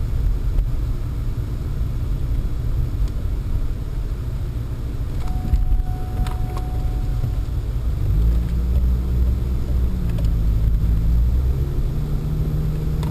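Pontiac Sunfire driving on snow, heard from inside the cabin: a steady low rumble of engine and tyres. From about eight seconds in, the engine note rises and holds for a few seconds, then drops, during a handbrake (e-brake) slide.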